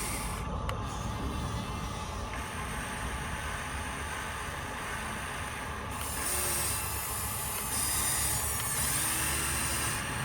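Small electric motors and gearboxes of a radio-controlled construction model running, with a mechanical whirr and hiss that starts and changes every few seconds. It grows louder about six and eight seconds in.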